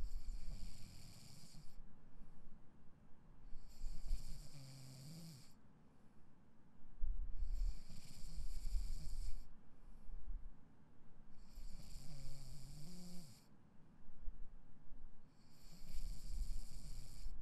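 A sleeping person snoring, five breaths about four seconds apart, each a low rattling snore with a breathy hiss.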